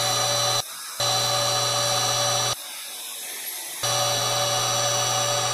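Angle grinder running against a shaft turning in a lathe, a steady high-pitched whine that cuts off abruptly twice, for about half a second and then for just over a second.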